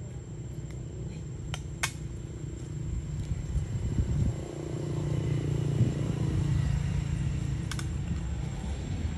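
Low rumble of a distant motor vehicle, swelling about halfway through and fading slightly near the end, with a few sharp brief clicks.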